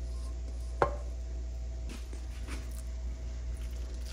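Kitchen utensils and dishes knocking while food is dished up: one sharp knock about a second in, then a few faint taps, over a steady low hum.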